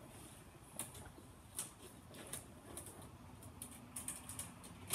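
Irregular light clicks and rattles of stiff copper cable being handled and worked into a breaker panel's neutral bar, with a sharper click near the end.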